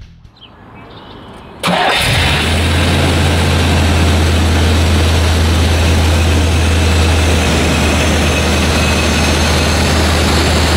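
1977 Chevrolet Corvette's 350 cubic-inch V8 starting up about two seconds in, then settling into a steady idle.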